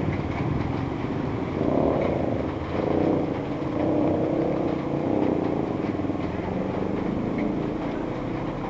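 Motorcycle engine running steadily, its pitch wavering up and down a little.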